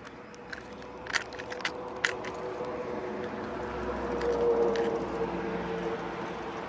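Light plastic clicks and rattles as fingers sort through a plastic tackle box of metal spinner lures, several sharp ticks in the first couple of seconds. Under them a steady engine hum builds, loudest about four and a half seconds in, then eases.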